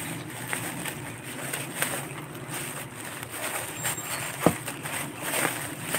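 Handling noise: rustling and light knocks as things are moved about by hand, with one sharp tap about four and a half seconds in.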